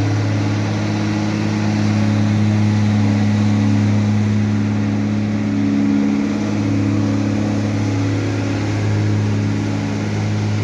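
Truck engine running at steady revs, a deep even drone, as the truck works with its front-mounted road sweeper.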